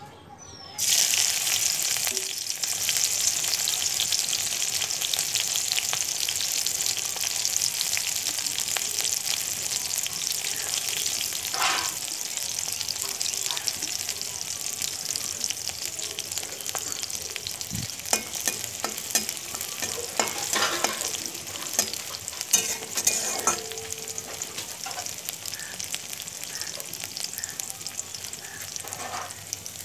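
Sliced green chillies hitting hot oil in a kadhai, sizzling loudly from about a second in and then frying steadily, the sizzle slowly easing. A few clicks and scrapes on the pan in the second half.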